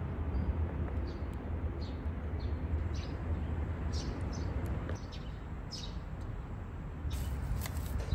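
Small birds chirping in short, scattered calls over a steady low outdoor rumble, with a few sharp clicks near the end.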